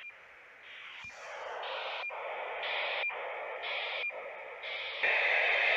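Radiosonde telemetry on 402.700 MHz heard through a Wouxun KG-UV9D handheld receiver's speaker: a hissy data buzz repeating about once a second, each pulse with a short high beep, growing louder. About five seconds in it becomes a steady, louder hiss.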